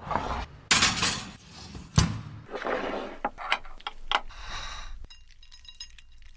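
Close-miked crunchy eating: bites and chewing with sharp cracks and clicks, the loudest crack about two seconds in, growing quieter near the end.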